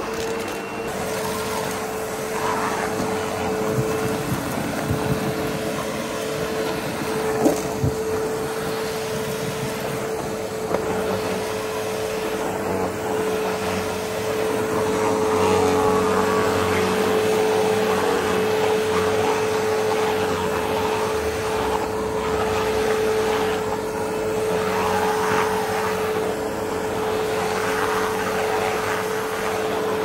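Sebo Automatic upright vacuum cleaner running with a steady motor whine while it is worked over a coarse doormat, sucking up dirt and fluff. It gets somewhat louder about halfway through, and there is one brief knock about seven seconds in.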